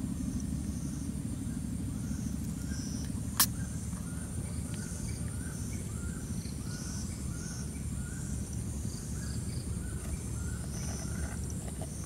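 Rural outdoor ambience: a steady low rumble under a constant high thin whine, with a faint short call repeating about every three quarters of a second. There is one sharp click about three and a half seconds in.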